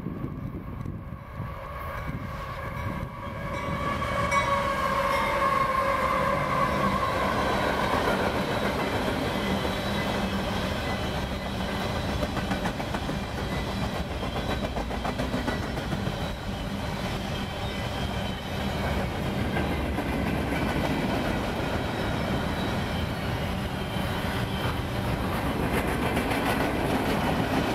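Freight train passing close by: the locomotive end goes by first with a steady pitched tone that falls slightly over the first seven seconds or so. Then a long string of covered hopper cars rolls past with a steady rumble and wheel clatter on the rails.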